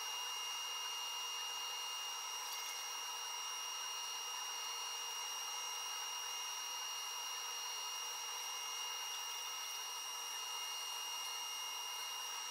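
Desktop CNC router running: a steady high-pitched whine with a hiss, holding even throughout.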